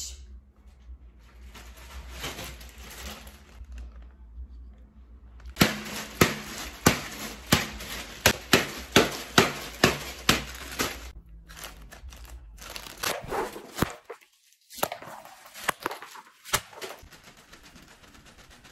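Plastic strawberry-print packaging crinkling and crackling as it is handled, with a run of sharp crackles about two a second in the middle.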